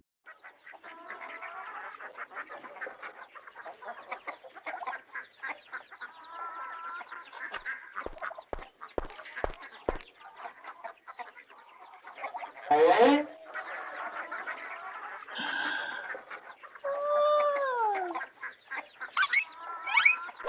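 A flock of chickens clucking busily, many birds calling over one another. A few louder, longer calls that fall in pitch stand out near the end.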